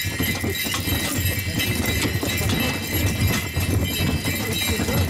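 A pair of horses pulling a sleigh, their hooves beating steadily on a snowy track.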